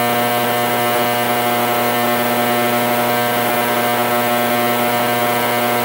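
Vevor 10L ultrasonic cleaner running with its transducers on in a water-filled tank: a steady buzzing hum with a hiss over it.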